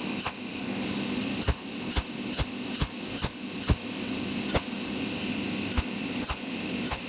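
Cold welding machine firing its pulsed arc in sharp cracks about two a second, with a short pause about four and a half seconds in, as it lays a continuous run of overlapping spot welds joining red copper to iron plate. A steady hum and hiss lie underneath.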